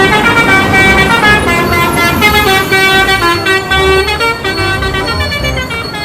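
A bus 'telolet' horn, a multi-tone musical air horn, playing a quick melody. It sounds as several tones together, stepping from note to note.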